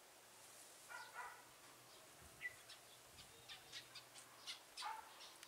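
Red-whiskered bulbuls calling faintly: a few short chirpy notes, then a quick run of sharp, high notes in the second half.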